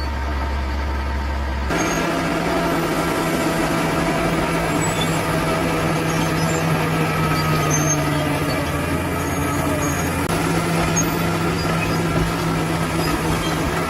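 Heavy diesel engine of a bulldozer running steadily under work. Its tone shifts abruptly a couple of seconds in and again about ten seconds in.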